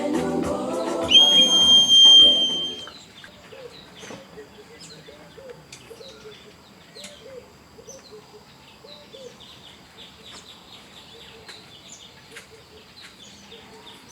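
Music with a long, steady, high whistle-like tone that ends about three seconds in, followed by birds chirping and calling, with a run of short lower calls.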